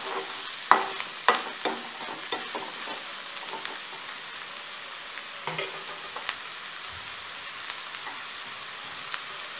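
Chopped onions frying in oil in a kadai with a steady sizzle. For the first few seconds a spatula stirs them, scraping and knocking against the pan, then the sizzling goes on alone with only an odd tap.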